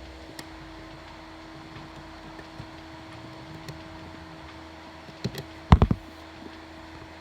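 Hands working a car's fuse box to pull a fuse: a few faint ticks, then a quick cluster of sharp plastic clicks and knocks about five to six seconds in, over a steady low hum.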